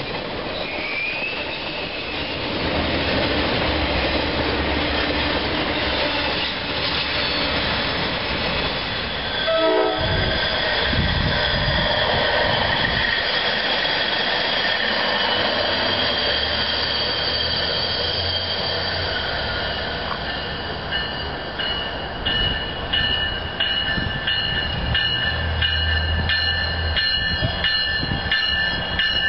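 Railroad cars rolling past close by, steel wheels running on the rails. From about ten seconds in, steady high-pitched wheel squealing sounds over the rolling noise and holds to the end as a train approaches.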